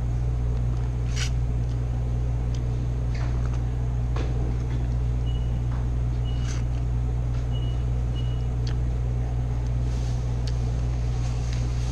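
Restaurant ventilation humming steadily and low. A few faint clicks and four short high beeps come in the middle.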